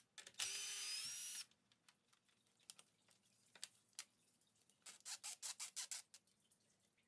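A small power tool whirs for about a second, then faint scattered clicks and a quick run of about eight clicks about five seconds in.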